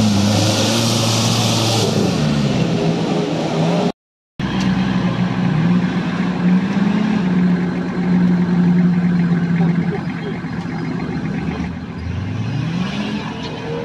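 Engines of modified off-road 4x4s working under load up steep dirt slopes, the pitch rising and falling with the throttle. The sound drops out briefly at a cut about four seconds in, and the engine revs up again near the end.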